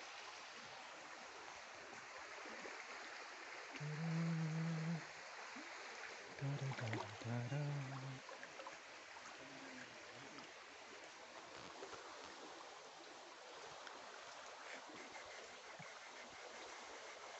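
Steady rush of flowing stream water. A person's voice sounds briefly twice, once about four seconds in and again around seven seconds in.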